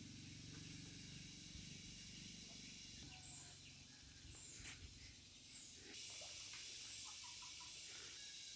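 Faint outdoor ambience: a low steady hum with a few faint, short bird calls and small clicks scattered through it.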